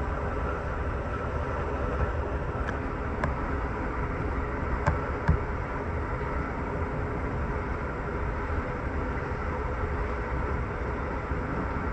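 Interior ride noise of an Amtrak Superliner sleeping car running at speed, around 75 mph: a steady deep rumble of wheels on rail, with a few short sharp clicks and knocks about three to five seconds in.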